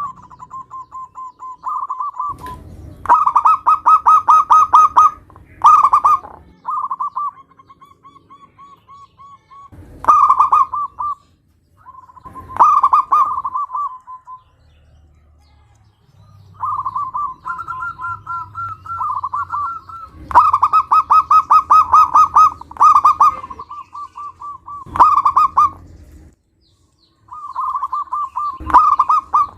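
Zebra doves (perkutut) cooing in repeated phrases of fast, evenly pulsed coos, with short pauses between phrases; at times two birds overlap at slightly different pitches.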